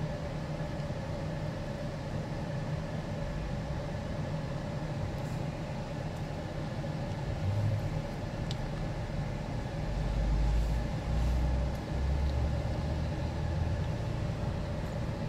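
Steady hum of an idling car, heard from inside the parked car, with a deeper rumble swelling from about ten to fourteen seconds in.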